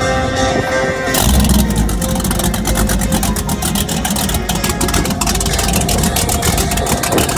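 Music for about the first second, then cut abruptly to ski-race powerboat engines running at idle, a steady low sound with a fast flutter.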